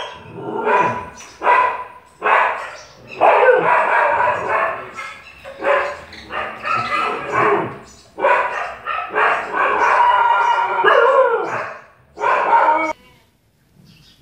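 A dog barking repeatedly in bursts, loud and close to the microphone, stopping shortly before the end.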